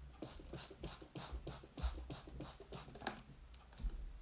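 Hands pulling small tufts of wool fibre and laying them out for wet felting: a quick run of soft, scratchy rustles, several a second, with a few dull knocks on the table.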